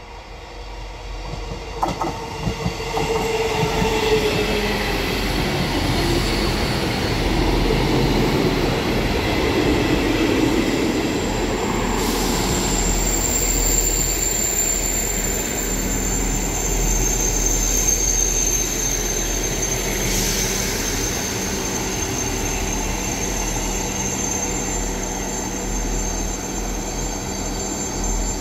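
South Western Railway Class 159 diesel multiple units on the move: one approaches and passes, growing louder over the first few seconds with its diesel engine running and wheels rumbling on the rails. From about halfway a steady high-pitched wheel squeal rides over the engine hum as a train runs through the station.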